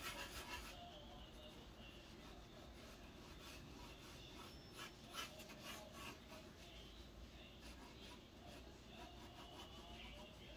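Faint scratching strokes of a drawing tool on a drawing surface, a run of quick strokes a few seconds in, then lighter strokes.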